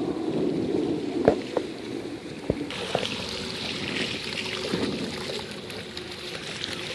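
Wind rumbling on the microphone, with a few sharp knocks in the first couple of seconds. From a little under three seconds in, small lake waves lap and splash against a concrete lake edge, adding a steady hiss.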